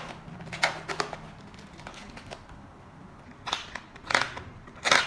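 Parcel packaging being unwrapped by hand: plastic wrap and cardboard rustling and crinkling in several short bursts, the loudest coming in the last second and a half.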